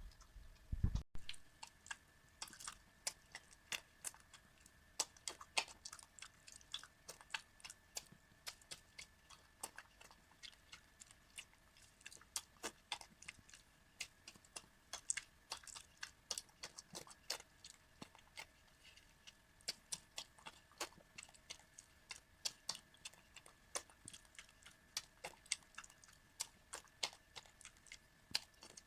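Old miniature dachshund eating homemade soup: a long run of quick, irregular wet clicks and smacks of lapping and chewing, several a second.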